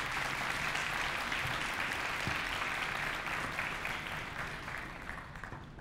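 Audience applauding, thinning out and fading near the end.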